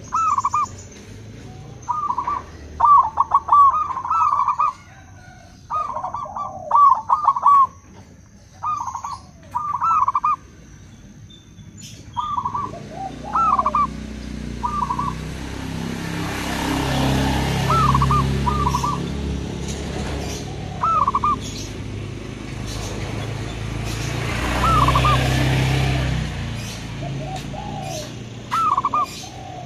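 Zebra doves (perkutut) cooing in clusters of two to four short, bent notes, with a lower second voice answering now and then. In the second half a rushing noise swells up twice under the calls, and a few sharp clicks come near the end.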